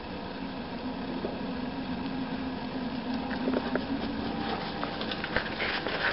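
Footsteps crunching through dry fallen leaves, the crackling growing denser and louder in the second half, over a faint steady low hum.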